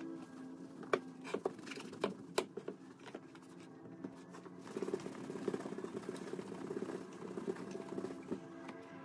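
Microfiber cloth buffing the wax-polished, wetted leather toe of a Crockett & Jones shoe in quick rubbing strokes, the shine-buffing stage of a wax polish. In the first seconds the shoe knocks and taps a few times as it is handled.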